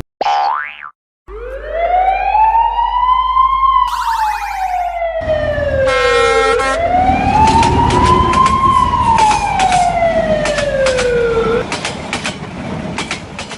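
Emergency-vehicle siren wailing through two slow cycles, each rising for a couple of seconds and then falling for about three. A brief rising whoosh comes just before it, and a patter of short clicks runs through the second half.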